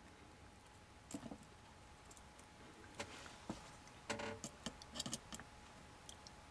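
Faint, scattered clicks and light taps from handling a battery lead and meter test leads on a circuit board, a few seconds apart, with a cluster between about four and five seconds in. Otherwise quiet, with a faint steady tone underneath.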